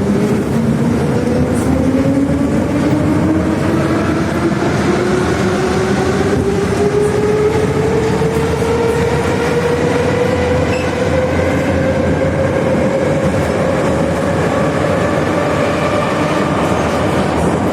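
Moscow Metro 81-717/714 'Nomernoy' train under way: its traction motors whine in a tone that climbs steadily as the train accelerates, then levels off near the end. Under it runs a steady rumble of wheels on rail.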